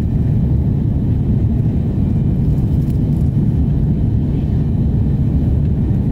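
Steady low rumble of an Airbus A330 in flight, heard inside the passenger cabin.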